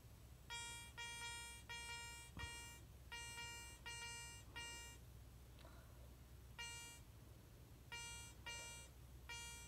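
Garrett Ace 300 metal detector beeping as a Spanish silver 2 reales coin is swept back and forth past its search coil in an air test. It gives about a dozen short beeps, all at one pitch, in quick runs, with a pause of about a second and a half just past the middle.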